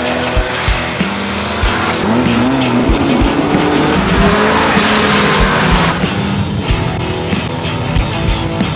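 Alfa Romeo Alfetta GTV Turbodelta Group 4 rally car's turbocharged four-cylinder engine revving up and down hard, with tyres squealing, over background music with a beat.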